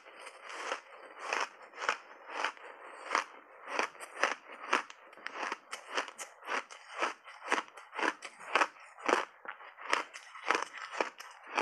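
A mouthful of crunchy ice chunks being chewed, a steady run of sharp crunches about two to three a second, picked up close by lapel microphones.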